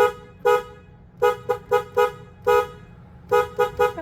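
Car horn honked in about ten short toots, some single and some in quick runs of three or four, with two notes sounding together in each blast. It is repeated honking meant to get someone's attention.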